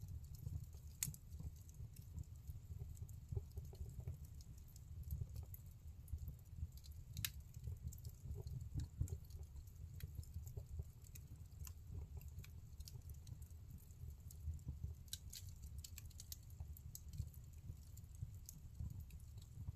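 Wood fire burning in a fireplace: scattered sharp crackles and pops over a low steady rumble.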